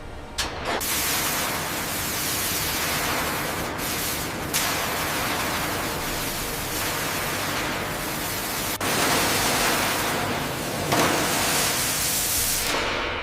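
Loud, steady hissing noise, like a blast of air or spray, that starts about half a second in and runs on with a few brief dropouts.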